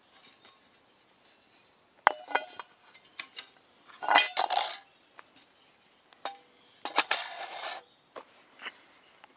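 Aluminium parts of a Trangia 27 spirit stove knocking and rattling together as the windshields, burner and pan are fitted. A sharp clink comes about two seconds in, with longer scraping rattles around four and seven seconds in.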